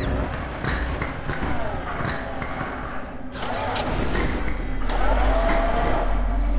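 Metallic clanks and clicks of machinery at work, with creaking tones and a low mechanical hum that swells about four seconds in.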